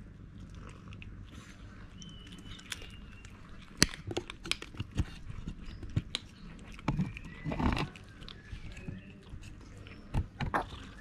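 Cats eating dry kibble: irregular crisp crunches and clicks of chewing, in little bursts.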